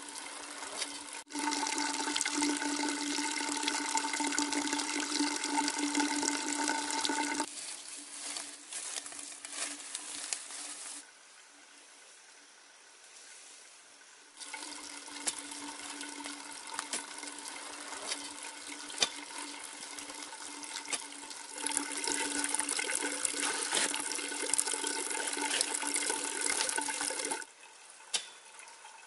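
Running water pouring and splashing steadily, with a few held tones under the hiss. It comes in sections that cut in and out abruptly, with a quieter gap in the middle.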